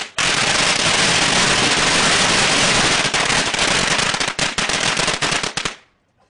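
A long string of firecrackers going off in a fast, unbroken crackle of bangs for nearly six seconds. The bangs become more spaced out in the last couple of seconds, then stop suddenly.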